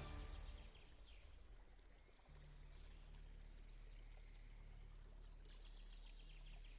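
Faint rushing, pouring water with a low steady hum underneath.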